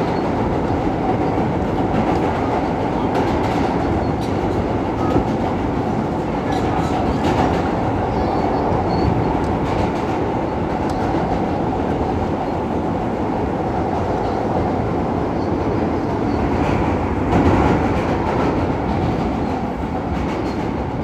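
R160 subway car running along the track, heard from inside the car: a steady noise of steel wheels on rail with faint clicks, briefly louder about seventeen seconds in.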